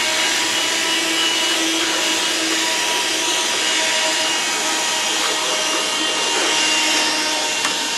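DeWalt scroll saw running steadily, its blade cutting a stack of three pieces of wood, an even whirring hiss.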